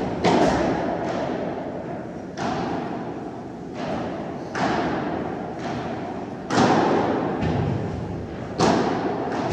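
Padel rally: the ball is struck back and forth with padel paddles, a sharp pop every second or two, about six in all. Each hit rings on in the large indoor hall.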